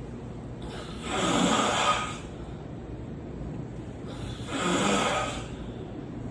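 A sleeping person snoring: two long snores, each about a second long, some three and a half seconds apart, one with each breath.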